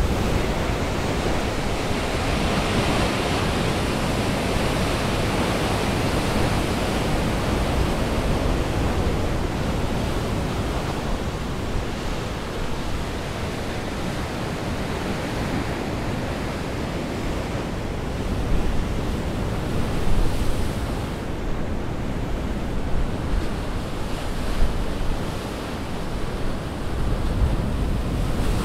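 Sea surf breaking against shoreline rocks and washing back in foam, a continuous rush of water with a few louder crashes in the second half.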